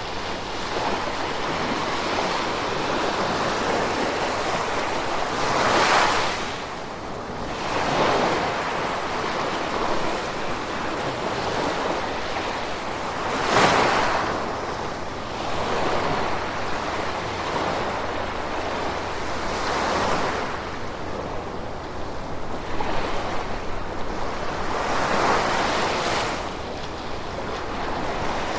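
Gentle ocean waves washing onto the shore, each swelling up and falling away every few seconds, with the louder ones about 6, 14, 20 and 25 seconds in, over a steady hiss of rain.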